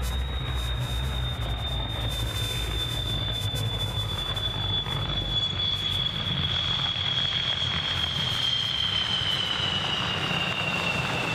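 MiG-29's twin turbofan jet engines whining on the landing rollout, a steady high whine that slowly falls in pitch, dropping faster as the jet passes close about nine seconds in, over a low rumble.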